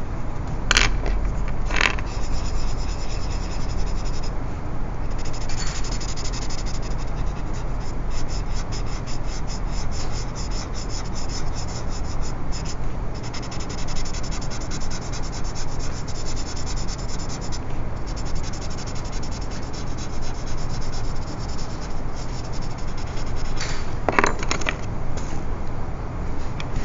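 Shading on drawing paper with a pencil and a paper blending stump: steady scratchy rubbing in quick back-and-forth strokes. A couple of sharp clicks about a second in, and another near the end.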